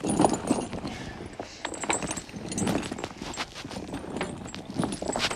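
Irregular clinks and knocks, several a second, as a steel tractor tire chain is shifted and handled.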